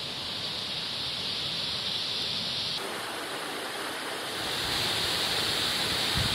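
Steady rush of a waterfall ahead, getting a little louder about four and a half seconds in.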